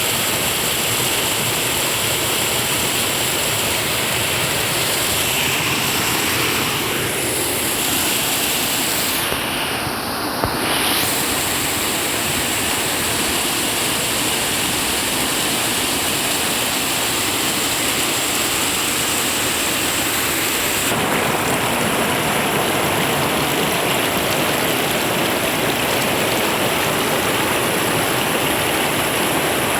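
Swift, clear river water rushing steadily.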